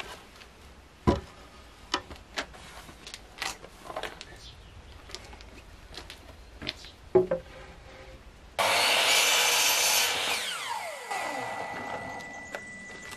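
Wooden timbers knocked and handled for several seconds, then a mitre saw starts suddenly about eight and a half seconds in and cuts through a piece of timber. Its motor winds down afterwards with a falling whine.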